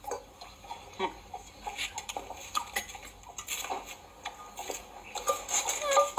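Scattered light clicks and taps of a small plastic cup and coconut shell being handled by a baby monkey, with a few short squeaks near the end.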